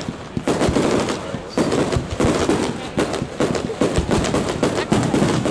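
Aerial fireworks launching and bursting in quick succession: a dense, irregular run of bangs and crackles, several a second.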